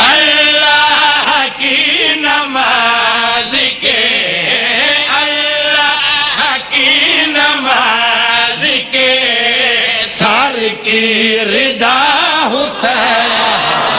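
A man chanting religious verse into a microphone in a melodic recitation style, holding long, wavering notes in phrases of a second or two.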